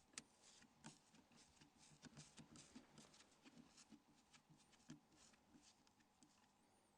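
Near silence, with a few faint, scattered clicks from a small Torx screwdriver undoing the Nokia 5700's tiny screws, bunched together about two to three seconds in.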